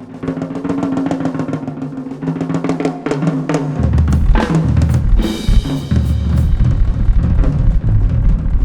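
Rock band playing an instrumental passage with no singing: the drum kit plays a busy pattern over sustained bass notes. About four seconds in the low end gets heavier, and a cymbal crash follows about a second later.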